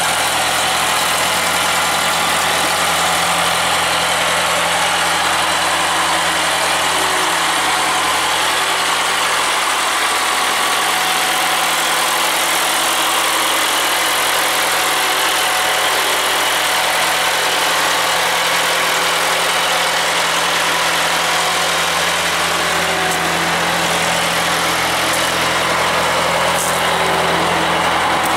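John Deere diesel engine on a Kilby prune shaker harvester running steadily, a loud, continuous engine drone with little change in speed.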